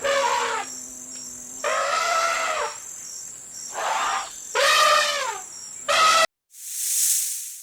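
Five short animal calls, each rising and then falling in pitch, over insects chirping steadily. The sound cuts off suddenly a little after six seconds, and a single hiss follows.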